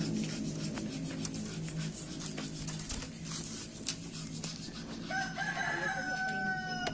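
A rooster crows once near the end, a single drawn-out call of about two seconds, over light clicks and taps.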